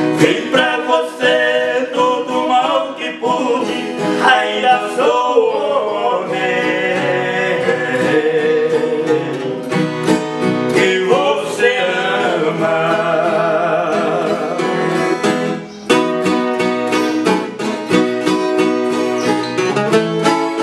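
Music: a viola caipira and an acoustic guitar playing a strummed and picked instrumental passage of a Brazilian caipira song, with a man's singing voice at the start.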